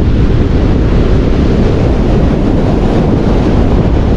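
Wind buffeting the microphone over the steady rush of surf breaking on the beach.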